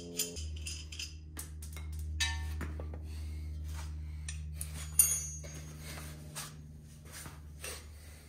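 Metal tools and suspension parts clinking and knocking during hands-on work, with one sharp ringing metallic clink about five seconds in. A steady low hum runs underneath.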